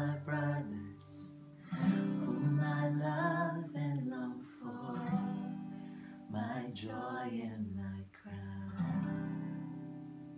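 Acoustic guitar strummed with singing over it, closing on a final chord that rings out and slowly fades near the end.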